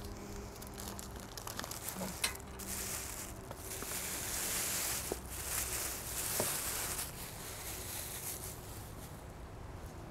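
Thin plastic takeout bag crinkling and rustling as it is pulled away from a takeout container, with a few light clicks and taps. The rustling is loudest in the middle stretch.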